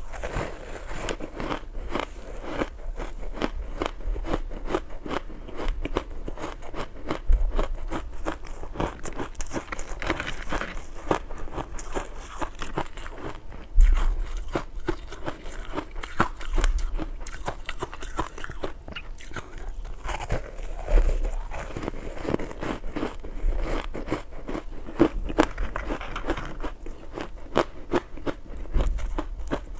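Close-miked crunching and chewing of soft powdery ice coated in matcha powder: a dense, continuous run of crisp bites and chews, with one sharper, louder crunch about halfway through.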